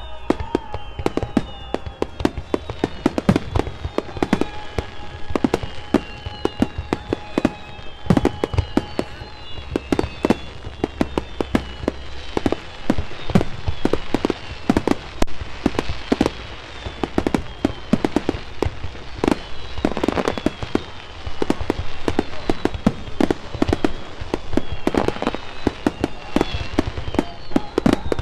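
Fireworks display: a dense barrage of aerial shells bursting one after another, with crackling between the booms.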